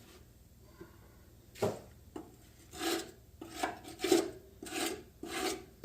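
Scraping of caked dirt and grime: a single knock, then five rasping strokes in a steady back-and-forth rhythm.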